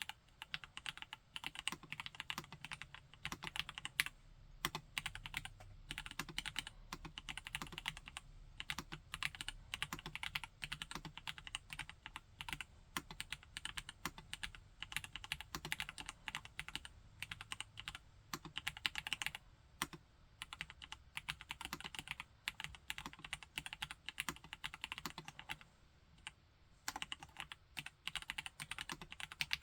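Continuous typing on a Vortex Model M SSK winkeyless mechanical keyboard with Gateron G Pro Brown tactile switches: a fast, steady clatter of keystrokes, with a short pause a few seconds before the end.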